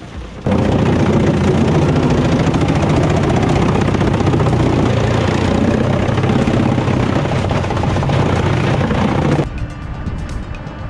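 A heavy log-processing machine running loudly under load, a dense mechanical din with a low engine drone, starting abruptly about half a second in and cutting off shortly before the end, with background music.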